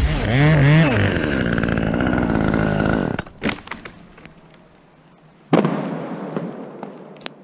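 Chainsaw engine revving up and down for about three seconds, then cutting out to a few sharp cracks. About five and a half seconds in comes a sudden loud crash that fades away.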